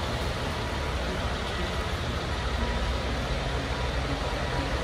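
Steady vehicle noise: an even low rumble with hiss above it, no distinct knocks or changes.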